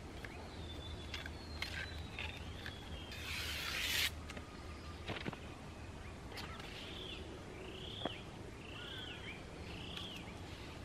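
Outdoor ambience with a bird calling a run of four short, arching notes in the second half, over a steady low hum. About three seconds in, a brief loud rush of noise lasting about a second, and a few faint clicks.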